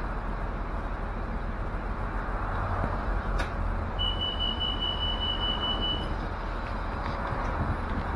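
Inside a moving OCTA city bus: steady engine and road rumble. About four seconds in, a single high steady beep sounds for about two seconds.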